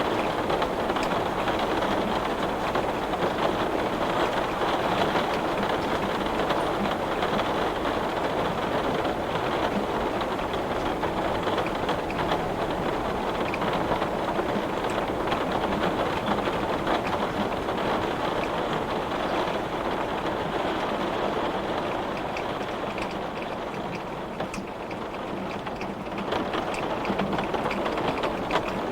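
Heavy rain pelting a glass window, a dense steady patter with scattered sharper drop ticks. It eases a little about three quarters of the way through, then picks up again.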